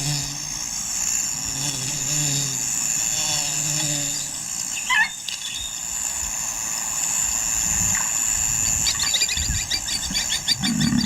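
Bush ambience: a steady high insect drone, with a single short bird call about five seconds in and a rapid chirping trill near the end.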